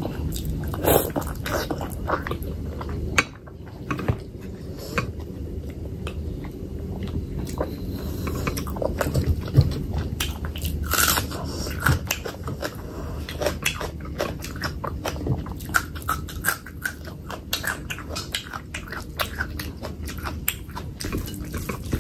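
Close-up chewing and wet mouth sounds of eating fatty pork belly curry with rice: a steady run of small sticky smacks and clicks.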